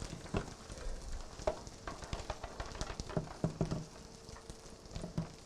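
Cake batter being stirred by hand in a mixing bowl: irregular clinks and scrapes of the utensil against the bowl.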